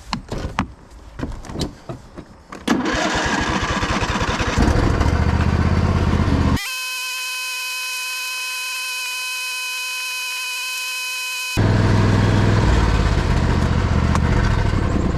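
A few footsteps, then a small vehicle engine running as it is driven. For about five seconds in the middle it is abruptly replaced by a steady high hum made of several clean pitched tones, which cuts in and out sharply.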